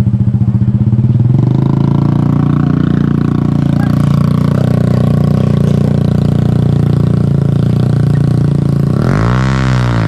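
Small underbone motorcycle engine running close by. It idles with a pulsing beat, revs up about a second in and holds a steady pull, then gives a quick rev up and back down near the end.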